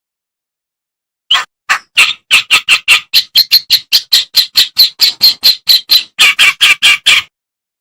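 Kerak basi (a reed warbler) singing a fast run of short, harsh, scratchy notes, about four or five a second, starting a little over a second in and stopping abruptly shortly before the end.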